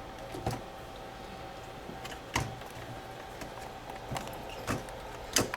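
A printed circuit board being set into its holding frame on the workbench: about five sharp clicks and knocks, the loudest near the end, over a steady faint hum.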